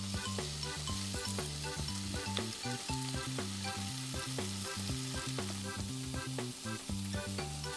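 Food sizzling and frying in a hot pan, with a steady hiss that starts abruptly, over background music with a steady beat.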